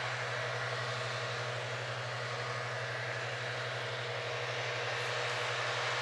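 John Deere 7530 tractor's six-cylinder diesel engine running steadily under load, driving two mowers that cut through standing grass.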